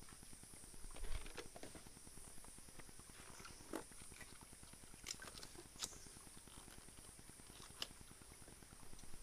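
Faint scattered clicks and taps of hands working a joint in a white PVC water pipe lying in a shallow stream, over a steady high-pitched hiss.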